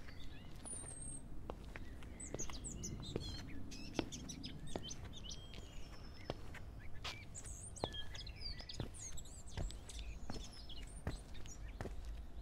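Small birds chirping and twittering in many short, quick calls over a steady low background hum, with scattered sharp clicks throughout.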